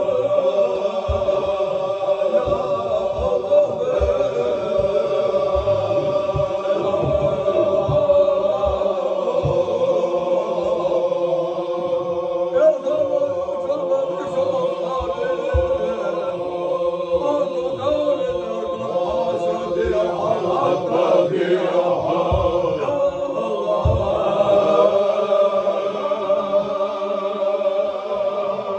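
A circle of men chanting a Chechen Sufi zikr together, a steady, held chorus of male voices. Scattered low thumps sound beneath the chant.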